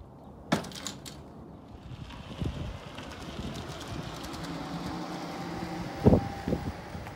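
Golf cart driving past on a paved path: a steady motor hum and tyre rumble that slowly grows louder, with a faint whine in the middle. Two sharp clicks come in the first second, and a sharp knock about six seconds in.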